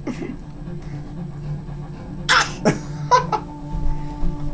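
One short imitated cough about two seconds in, followed a moment later by a brief voiced note.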